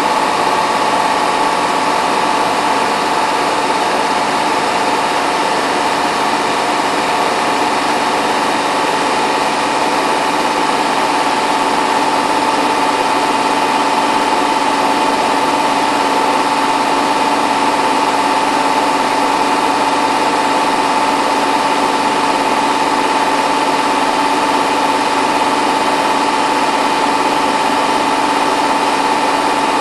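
Hotpoint WT960 washing machine in its final fast spin, up to 1600 rpm, drum spinning at high speed with a steady high-pitched motor whine over a whirring rush of the drum.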